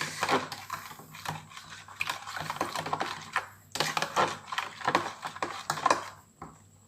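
Irregular light clicks and knocks of kitchen utensils against a bowl or dish, going on for several seconds, then dying away near the end.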